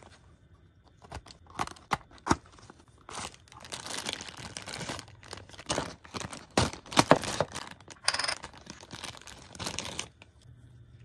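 A few sharp clicks and snaps as the cardboard figure box is opened, then a clear plastic packaging bag crinkling as it is pulled out and handled. The crinkling stops about ten seconds in.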